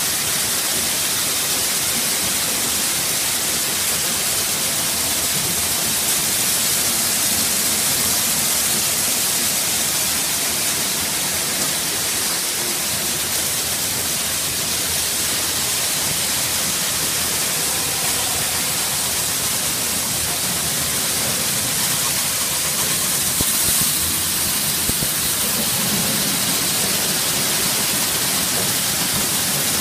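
Angelon optical bean color sorter running as it sorts red beans: a steady, even hiss with no breaks.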